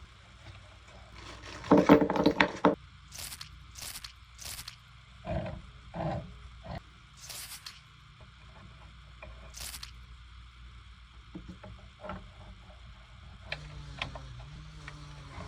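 Hand work on metal plumbing parts: a loud, grating scrape about two seconds in, then a string of short, sharp scrapes and knocks.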